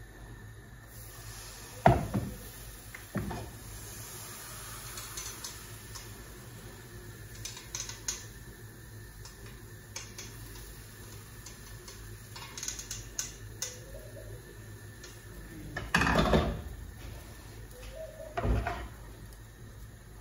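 Kitchenware being handled: a pan, dishes and utensils knock and clink at irregular moments. The loudest knock comes about two seconds in, with a heavier clatter about three-quarters of the way through, over a low steady hum.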